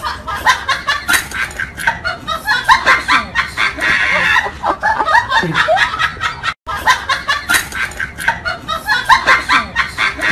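Laughter from several voices snickering and chuckling in quick, overlapping bursts, cutting out for a moment about two-thirds through and then carrying on.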